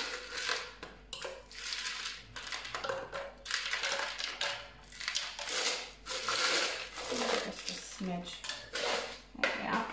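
Ice cubes clattering into a blender bottle: repeated clinks and rattles in several bursts.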